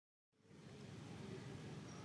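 Faint, steady outdoor background noise that fades in just after the start, with no distinct event standing out.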